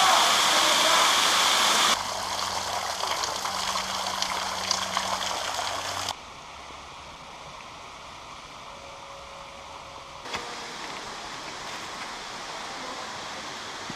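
Waterfall of thaw meltwater pouring off a sandstone overhang into a shallow stream: a loud, steady rush of falling water. About two seconds in the sound drops abruptly to a fainter steady rush, and drops again twice, leaving quieter outdoor noise.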